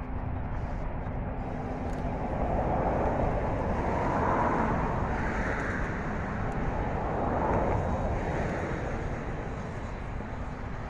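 Ww-class steam tank locomotive hauling a train along a distant line: a rumble that swells through the middle and eases toward the end.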